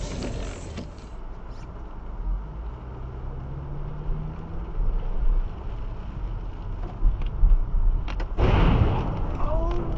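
Car engine and wet-road rumble heard inside the cabin as the car pulls away and gathers speed, the engine hum rising in pitch. Near the end there is a short, louder rush of noise.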